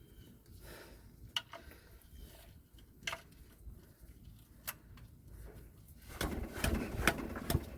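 Tools and parts being handled under a truck during an oil change: scattered light clicks and knocks, then louder, busier rattling and scraping from about six seconds in.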